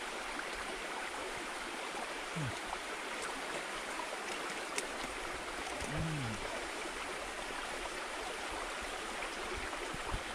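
Steady rush of flowing stream water, even and unbroken.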